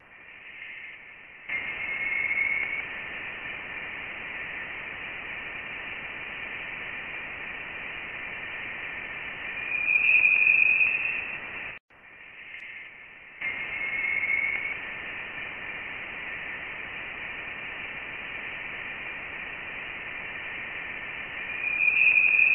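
Voyager 1 plasma wave data converted into audible sound: a steady hiss with a faint tone that rises in pitch and swells louder, played through twice. The rising tone is the sign of the interstellar plasma growing denser.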